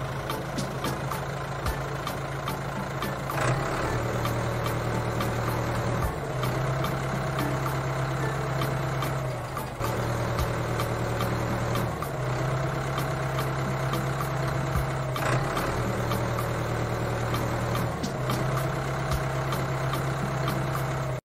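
Tractor engine running steadily, a low drone whose pitch shifts slightly every two to three seconds, with a fast rattle of small clicks over it.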